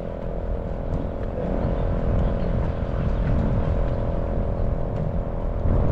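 A steady mechanical hum with a constant whine in it, under low wind rumble on the microphone.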